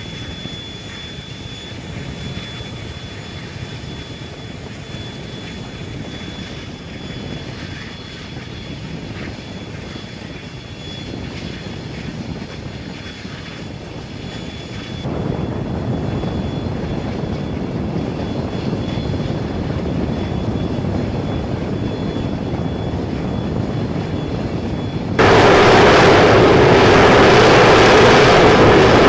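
Jet engine noise on an aircraft carrier's flight deck: a steady rushing with a faint high whine, getting louder about halfway through, then jumping suddenly much louder near the end.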